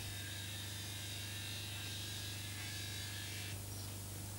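Steady low electrical hum and buzz, with a faint high whine that stops about three and a half seconds in.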